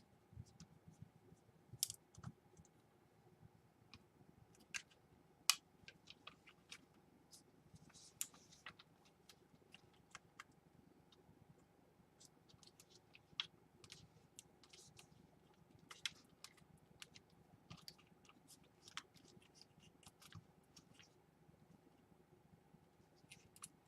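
Faint, irregular small clicks and scrapes of a screwdriver and small parts being handled while a laptop hard drive is screwed into place.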